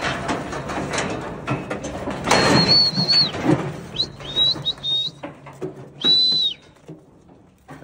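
Someone whistling high clear notes: one long note, a few short ones, then another long one. Under the whistling, knocks and rattling, heaviest in the first half, come from the metal cattle crush as cattle move inside it.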